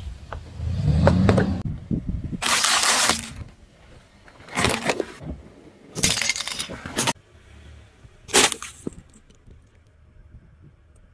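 Car tyre rolling over and crushing plastic objects and candy on asphalt: a low tyre rumble, then four separate crunching, cracking bursts as things break under the wheel, the last one short and sharp.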